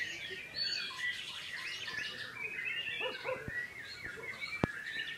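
White-rumped shama (murai batu) singing a fast, unbroken run of varied phrases, with one sharp click a little before the end.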